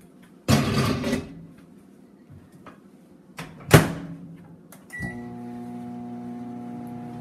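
A bowl is slid into a countertop microwave oven and the door is shut with a sharp clunk. A keypad beep follows, and the microwave starts running with a steady hum about five seconds in.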